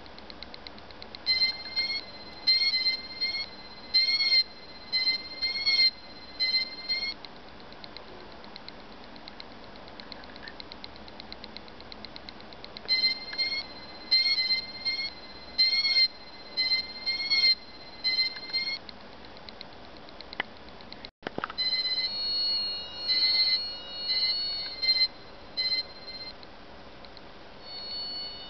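Small buzzer on a breadboard sounding the PWM drive of a colour-changing RGB LED's built-in controller: runs of short, high-pitched warbling beeps whose pitch sweeps up and down as the colours fade, separated by stretches of faint, fast ticking. After a break, a different pattern of beeps with several tones at once.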